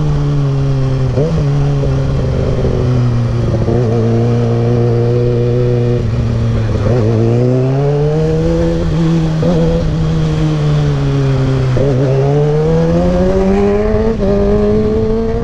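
Kawasaki ZX-6R sportbike's inline-four engine running under way, its pitch falling and rising smoothly several times as the throttle is eased off and opened again.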